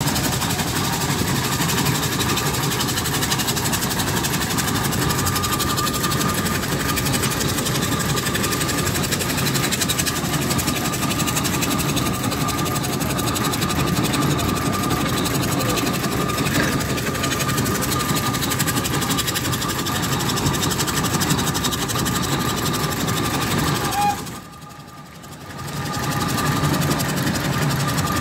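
1901 Burrell 7 nhp compound traction engine under way on the road, heard from its footplate: steady mechanical running noise, with a faint steady high note through it. The sound drops away briefly about 24 seconds in, then returns.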